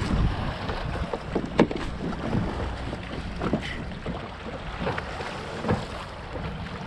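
Water slapping against a fishing kayak's hull, with a dozen or so irregular short knocks and wind on the microphone.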